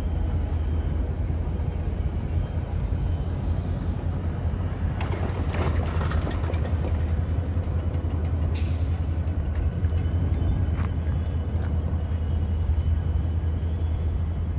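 Steady low rumble with no clear pitch, broken by a few brief noisier passing sounds about five to six seconds in and again near nine seconds.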